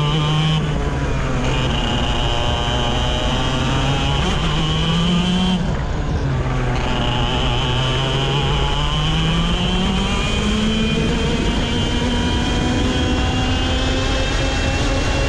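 125 cc two-stroke kart engine at racing speed on a lap. Its pitch drops briefly twice, about half a second in and about 6 s in, as the throttle is lifted for corners. After the second drop it climbs in one long steady rise as the kart accelerates down the straight.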